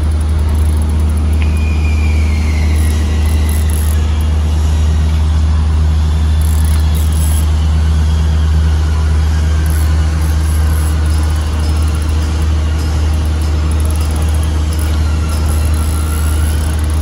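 Steady low machinery hum from construction works, unbroken and loud, with faint whining tones that slowly glide down in pitch.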